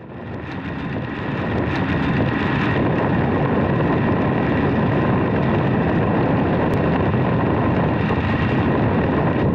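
Steady wind rush on the microphone of a Benelli TRK 502X motorcycle riding at highway speed in the rain, with the bike's road and engine noise beneath it. It fades in over the first second or so, then holds level.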